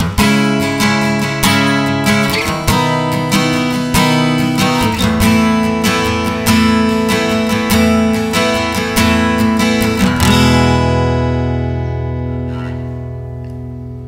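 Strinberg SD201HC TOS acoustic-electric guitar playing a short passage, picked up by a condenser microphone blended with the guitar's built-in preamp. About ten seconds in it stops on a final chord that rings out and slowly fades.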